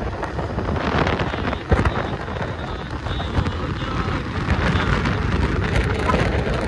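Wind buffeting the microphone with vehicle and road noise underneath, as when riding along a road.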